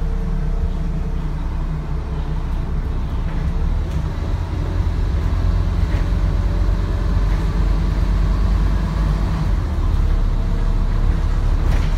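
Scania N230UD double-decker bus's diesel engine running steadily with a deep low rumble, heard from on board.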